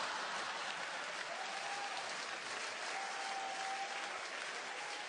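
Large theatre audience applauding after a punchline, a dense steady clapping that eases off slightly toward the end.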